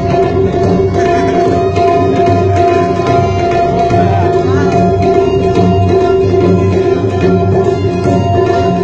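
Tabla pair played with the hands in a continuous fast rhythm, the low bass drum booming under the ringing treble drum, over a steady held tone.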